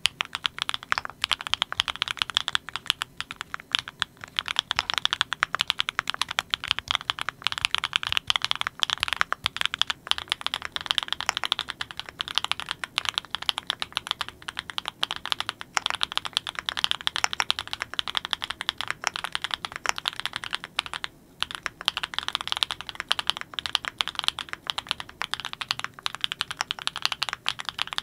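Fast, continuous typing on a Klein Mont Cervin custom mechanical keyboard with Kinetic Labs Candy Vanilla switches, keystrokes following one another in a dense stream, with a brief pause about 21 seconds in.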